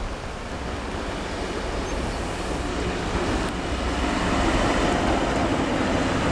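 Red DB class 261 diesel shunting locomotive running light, its engine and wheels on the rails getting louder as it approaches and passing close by about two-thirds of the way in.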